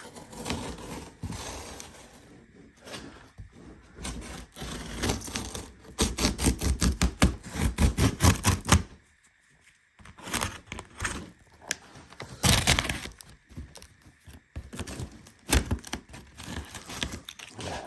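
A cardboard box being torn and pried open by hand: irregular ripping, scraping and thuds of cardboard, in uneven bursts that are busiest about six to nine seconds in and again around thirteen seconds.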